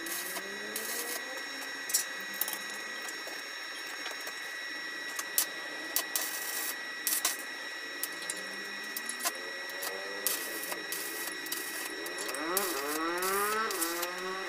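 Electric arc welding: a steady frying crackle broken by sharp pops of spatter. In the last few seconds a drawn-out pitched sound rises and falls over it.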